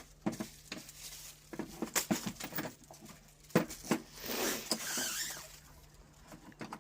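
Light clicks and knocks of string-trimmer parts being handled, with a longer scraping, sliding sound about four seconds in.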